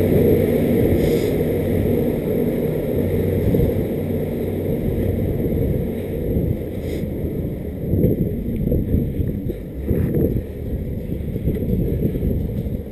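Low, steady rumble of a bicycle rolling over brick paving, with irregular small jolts from the pavers and wind buffeting the microphone.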